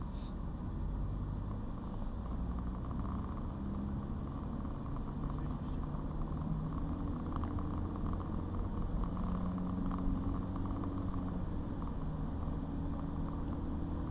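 Car driving, a steady low engine hum and road rumble whose engine note shifts in pitch a few times.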